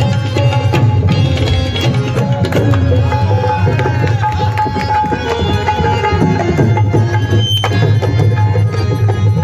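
Tabla and dholak played fast in a jugalbandi: dense, rapid hand strokes with deep bass drum tones, over held harmonium notes.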